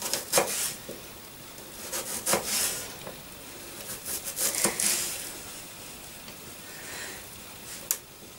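Kitchen knife slicing an onion on a wooden chopping board: a few separate cuts spaced a second or two apart, and a sharp tap near the end.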